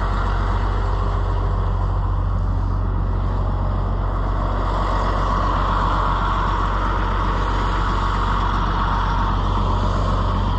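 Farm tractor engine idling steadily, an even low running hum.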